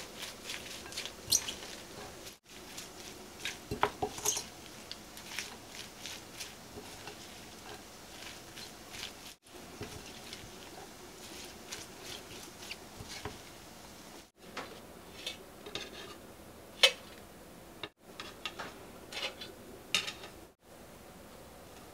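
Kitchen handling sounds: chopsticks clicking against a glass bowl and soft wet squishing as seasoned chives and sliced onion are tossed, then light taps of chopsticks lifting fried pancakes from a wire rack onto a plate. Scattered short clicks throughout, one sharper click near the end.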